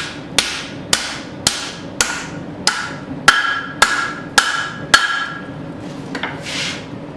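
A 3-pound hand hammer striking hot mild steel over an anvil horn, wrapping a tomahawk eye, about two blows a second, each with a short metallic ring. The hammering stops about five seconds in.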